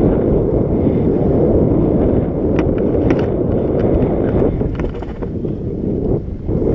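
Mountain bike riding down a gravel-and-dirt trail: wind buffeting the bike-mounted camera's microphone, mixed with tyres rolling over gravel. A few sharp clicks and rattles from the bike on the rough ground come in the middle.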